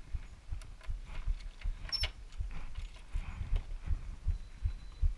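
A steady run of low, dull thumps, about three a second, with one sharp metallic click about two seconds in as the brass deadbolt and lever handle of a front door are worked.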